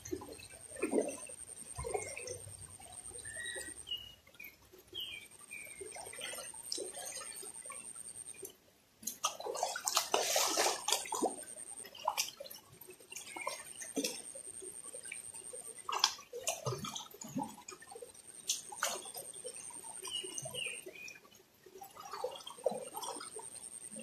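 Shallow river water splashing and sloshing as a person wades barefoot and then lies down in the stream, with a loud burst of splashing about halfway through. A high, thin buzz comes and goes every few seconds in the background.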